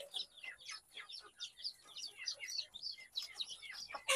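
A flock of two-month-old chicks peeping as they feed: many short, falling chirps overlapping without a break, and a single louder knock near the end.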